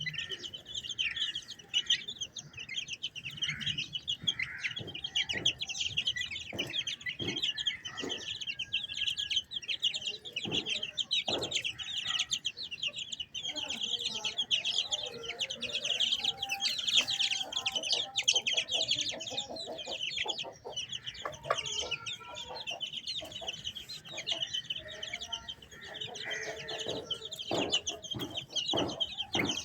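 A brood of chicks peeping constantly with rapid, high cheeps, while an Aseel hen clucks low among them, mostly through the middle stretch. Scattered sharp taps come through, a cluster a few seconds in and more near the end.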